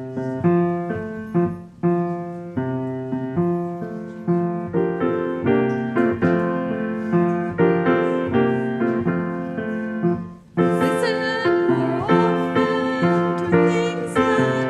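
Piano playing the introduction to a hymn in steady, evenly repeated chords. About ten and a half seconds in, after a brief break, the music grows fuller, with a wavering higher melody line joining the piano.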